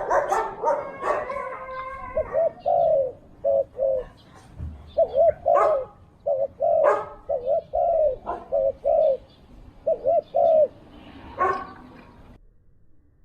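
Spotted doves cooing, short rolling coos repeated in quick groups with a few sharp clicks among them; the sound cuts off suddenly near the end.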